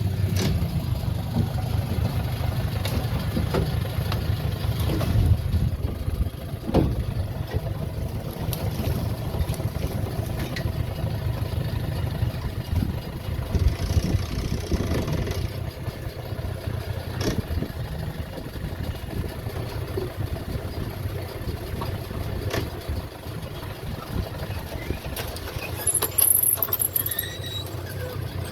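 Small boat's outboard motor running slowly at low revs, with occasional knocks and a brief high squeak near the end.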